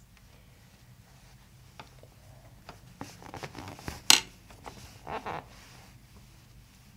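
Hands working the neck of a man lying face up on a chiropractic table: soft rustling of the paper headrest cover and small clicks, with one sharp click a little past four seconds in.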